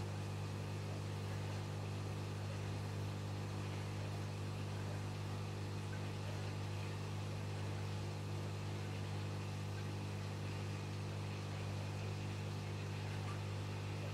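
Low, steady electrical hum from running aquarium equipment, under a faint even hiss.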